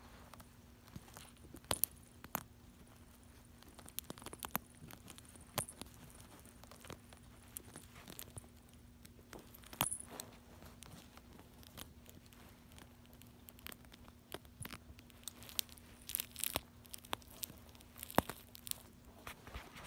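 Gift wrapping paper crinkling and rustling in scattered short bursts, with a few sharper clicks and taps, as a cat paws and noses at it beside the phone.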